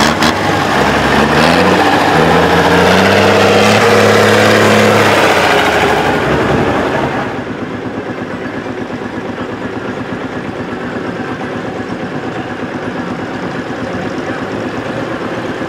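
Vintage tractor engines: a grey Ferguson tractor's engine rising in pitch as it pulls away, then, after a sharp change about seven seconds in, a red Allis-Chalmers tractor's engine running steadily at low speed with an even beat as it drives past.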